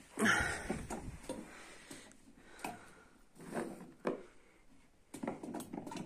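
Scattered rustles and soft knocks of handling: olives shifting in a plastic bowl and a plastic jug of olives being picked up and moved.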